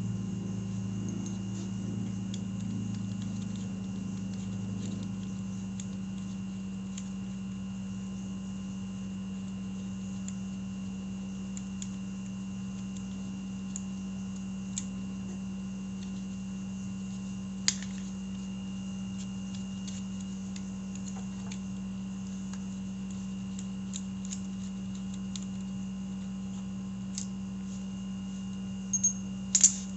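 Steady low hum under a few light clicks and taps from hand work on the M109R's front brake caliper as the pads are taken out. One sharp click comes about halfway through, and a quick cluster of clicks near the end.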